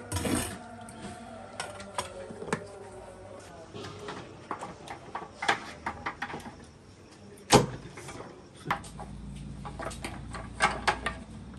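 Scattered clicks and knocks of cooking utensils: a metal ladle against a large steel pot and trotters being set into a clay pot, with one sharp knock about seven and a half seconds in.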